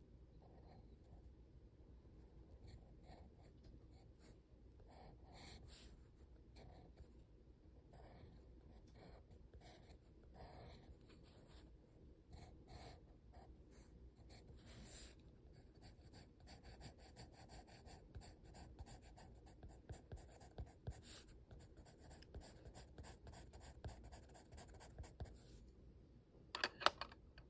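Colored pencil scratching over sketchbook paper in short, quick strokes as eyes and a mouth are drawn, faint and close. Near the end come two or three sharper taps.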